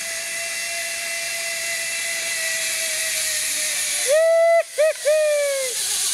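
Zipline trolley running along the steel cable toward the platform: a steady hiss with a thin, even whine that slowly grows louder as the rider nears. About four seconds in, a person lets out a loud whooping yell in three parts.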